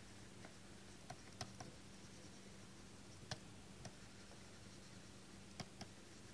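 Near silence with faint, irregular clicks of a pen tip tapping the writing surface as words are handwritten, over a faint low steady hum.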